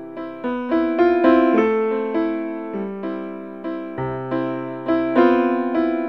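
Background music: piano notes struck one after another, each ringing and fading, in a slow, gentle melody with chords.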